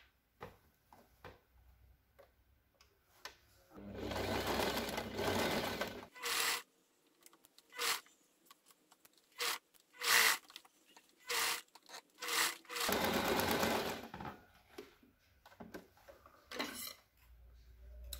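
Janome electric sewing machine stitching in stop-and-go runs: one run of about two seconds, several short bursts of a few stitches, then another run of about a second and a half.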